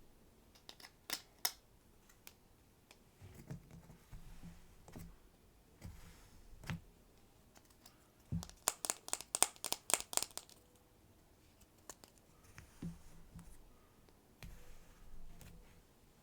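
Kinetic sand and small plastic pieces being handled up close: scattered sharp clicks and soft scraping and crinkling, with a quick run of about a dozen crisp clicks around the middle.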